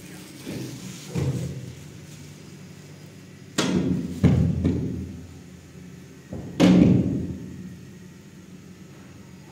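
Four dull thumps or knocks, each dying away over up to a second, the loudest two about four and a half and seven seconds in.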